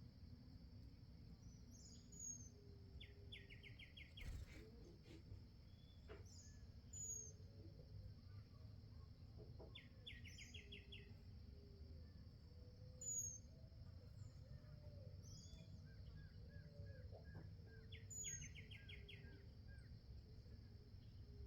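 Faint songbird calls: a short high slurred note and a quick run of clipped notes, repeating about every five seconds, over a steady high-pitched drone.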